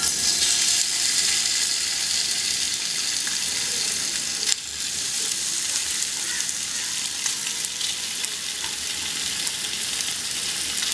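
Small raw chicken pieces sizzling and frying in hot oil in a non-stick frying pan. The sizzle sets in suddenly as the chicken goes into the oil and then runs steadily, with one brief click about four and a half seconds in.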